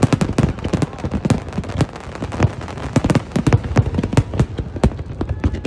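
Fireworks display going off in rapid succession: many overlapping bangs and crackles, several a second.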